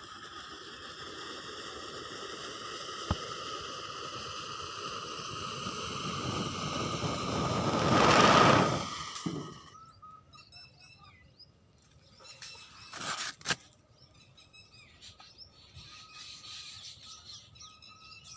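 Firework-fuelled homemade rocket motor, a metal pipe with a cardboard nozzle, burning with a steady rushing hiss. The hiss grows louder for about eight seconds, peaks, and cuts off about ten seconds in. Gas is also escaping from the motor's leaky sealed end, so little pressure builds in the chamber. Afterwards birds chirp faintly, with a couple of sharp clicks.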